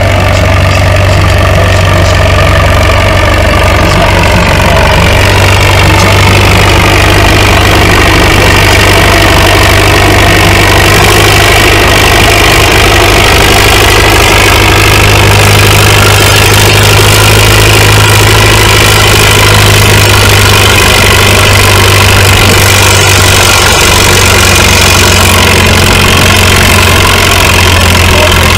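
Antique tractor engine running hard and steadily as it pulls a weight-transfer sled. Its pitch sags a few seconds in and then climbs back.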